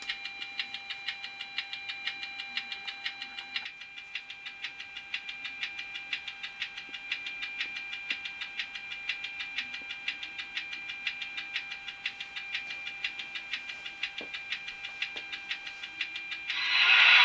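Model SNCF electric locomotive standing still, giving an even rapid ticking of about five strokes a second over a steady high whine; part of the whine stops about four seconds in.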